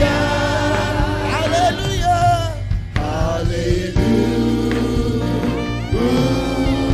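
Gospel praise song: a singer and choir sing held, gliding notes over a steady band accompaniment.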